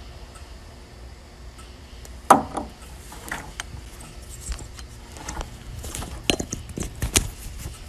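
A sharp knock with a short ringing tail about two seconds in, then a run of irregular knocks and clatters of hard objects in a horse stall.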